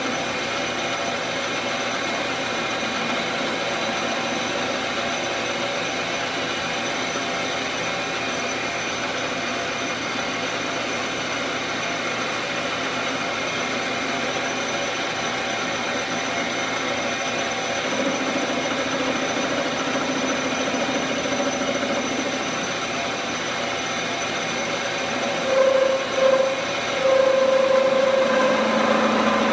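Benchtop metal lathe running steadily while working the end of a shotgun barrel, a constant mechanical whine with several steady tones. About 25 seconds in a louder, higher whine comes in, briefly stuttering before holding steady.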